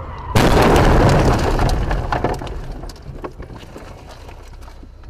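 A car crashing as it runs off the road, heard from inside its cabin: a sudden loud crash about a third of a second in, a rough noise that fades over about two seconds, then scattered cracks and knocks.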